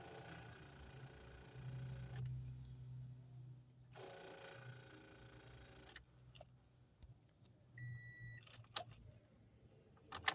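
Windshield wipers of a 2014 Scion xB sweeping across the glass twice, each pass about two seconds, running a little slow on what the owner takes for a weak battery. A short electronic beep follows, then a few sharp clicks near the end.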